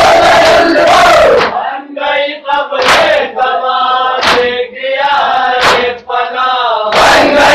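Men chanting a Shia noha (lament) in unison, loud and crowded at the start and again near the end. In between, a quieter sung line is marked by sharp chest-beating (matam) slaps about every second and a half.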